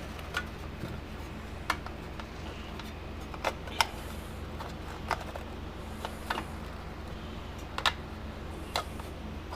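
Scattered light taps and clicks, about eight at irregular intervals, from small metal parts and tools being handled while a fence charger is repaired, over a steady low hum.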